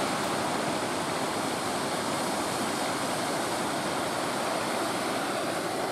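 Steady rushing of choppy, rough sea water and surf.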